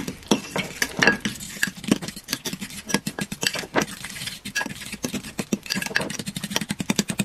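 A utensil stirring chocolate pudding mix into mashed banana in a bowl, tapping and scraping against the bowl in quick, irregular clicks.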